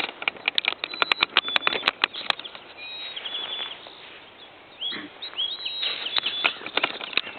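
Songbirds chirping: a quick run of sharp chips in the first two seconds, a short rapid trill about three seconds in, and more chirps near the end.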